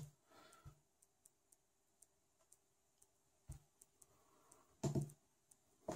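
Near silence broken by faint clicks and taps of fingers on a Samsung Galaxy Tab A 10.1's touchscreen. The loudest tap comes about three and a half seconds in, and a brief dull thump follows about a second later.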